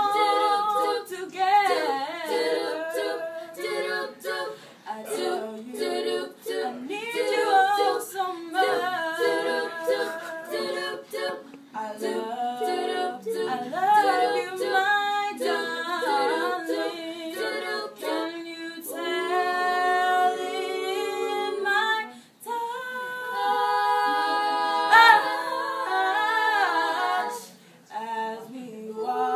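A group of young girls singing a cappella in harmony, with longer held chords in the second half.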